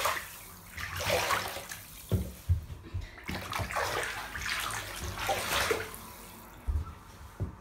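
Bath water sloshing and swishing in a tub in about four surges, with a few dull low knocks in between.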